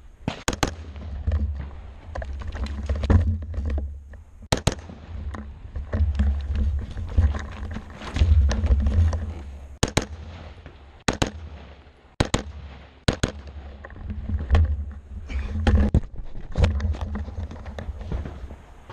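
AR-15 rifle firing right at the rifle-mounted camera, the shots coming in quick pairs, two rounds per target, a few seconds apart, over a steady low rumble.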